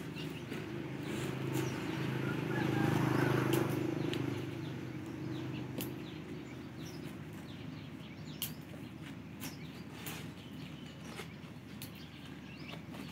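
Small birds chirping outdoors, with scattered sharp clicks and a low rumble that swells and fades over the first few seconds.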